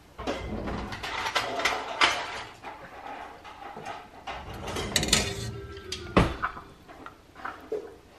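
Kitchen clatter of dishes and a pot: scattered knocks and clinks, with a sharper knock about six seconds in, as the boiled dumplings are dished up.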